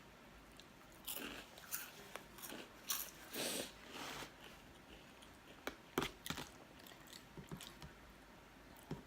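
A person chewing and biting food close to the microphone: irregular wet mouth clicks and smacks, busiest in the first half, with a few sharper clicks around the middle.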